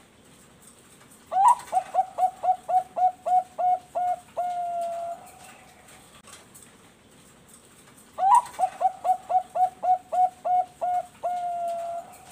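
Zebra dove (perkutut bangkok) singing its cooing song twice, about seven seconds apart. Each phrase opens with a rising note, runs into a quick series of about ten short coos and ends on one longer held coo.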